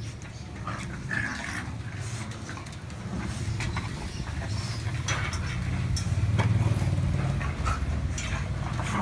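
Beagle puppies playing in a wire cage: a few short dog sounds and many small clicks and knocks from paws on the plastic slatted floor and bars. Under them runs a low steady rumble that swells about six seconds in.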